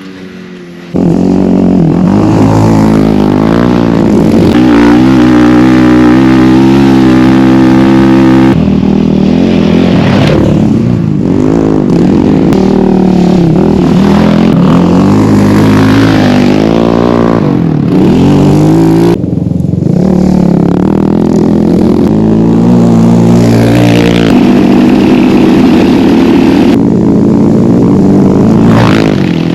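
Yamaha Raptor 700 sport ATVs' single-cylinder four-stroke engines being ridden hard, revving up and down as they speed up and back off. The engine sound comes in loudly about a second in and keeps changing pitch, with brief drops in revs now and then.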